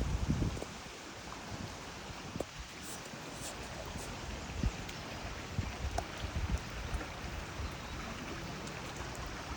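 Rushing river water making a steady, even noise, with scattered short low thumps underneath.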